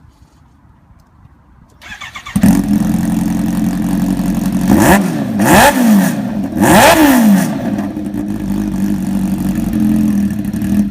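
Kawasaki H2's supercharged inline-four engine cranking briefly and catching about two seconds in, then idling loudly and revved with three quick throttle blips that rise and fall in pitch before it settles back to idle.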